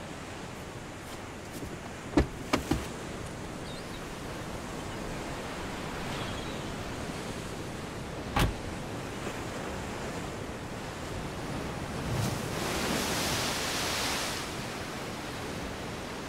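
Steady sound of surf on a beach, with a broader wave rush swelling and fading about twelve to fourteen seconds in. A few sharp clicks come about two seconds in, and a single sharper knock about eight seconds in, where a car door is being handled.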